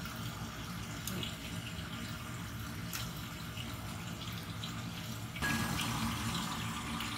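Offal frying in a pan of hot oil: a steady sizzle with scattered small crackles and pops, growing louder about five seconds in.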